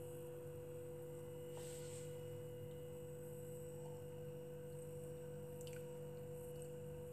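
A steady hum with a held mid-pitched tone and a lower drone beneath it, unchanging throughout.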